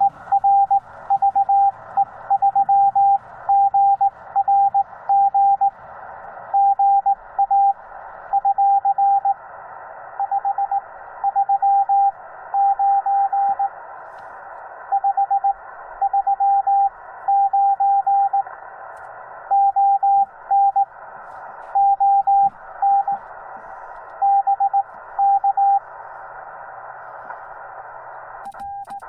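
Morse code (CW) from a Yaesu FT-891 ham radio transceiver: a single steady tone keyed on and off in dots and dashes, over a constant hiss of band noise. The tone drops out near the end, and a fainter one at the same pitch follows.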